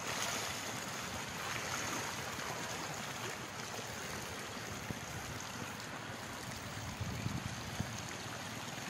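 Floodwater rushing steadily across and over the edge of a submerged road. Near the end the low engine of a motorbike wading through the water comes in.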